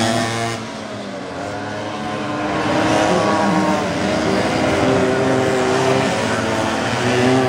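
Minimoto pocket-bike engines buzzing at high revs, their pitch rising and falling as the riders ease off and accelerate through the corners. The sound dips about half a second in and builds again from about two seconds.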